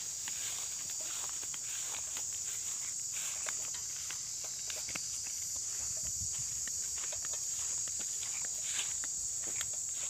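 Insects droning steadily on one high pitch, with footsteps and rustling through grass on a dirt path.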